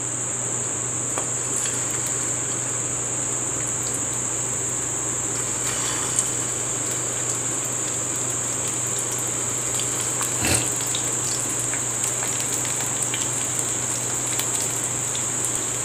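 Corn kebabs deep-frying in hot oil in a kadai: steady sizzling and bubbling with scattered small crackles. One brief louder sound about ten seconds in, as another kebab goes into the oil.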